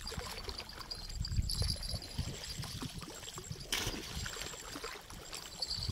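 Reservoir shore ambience: wind rumbling on the microphone over small waves lapping, with faint high-pitched chirping coming and going.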